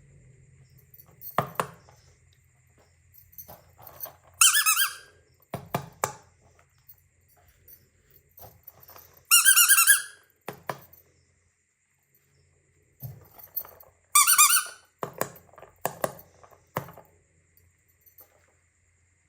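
A squeaky toy squeezed three times, each a loud squeak of about half a second to a second. Sharp plastic clicks and knocks from handling come between the squeaks.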